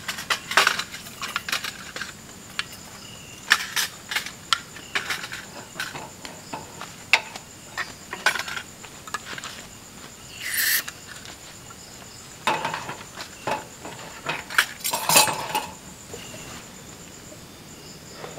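Clicks and light metallic clatter as a portable butane camping stove with a windscreen is handled and a gas canister is fitted into it, with a short hiss of gas a little past halfway. Insects shrill steadily behind.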